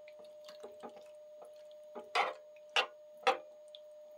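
Metal fork scraping and clinking against a stainless steel saucepan while stirring diced boiled potatoes in butter and potato cooking water, with small clicks and three louder scrapes in the second half.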